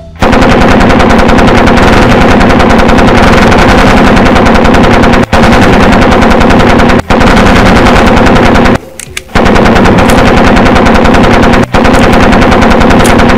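Sustained automatic machine-gun fire, very loud and rapid, in long bursts broken by short pauses about 5, 7, 9 and 12 seconds in.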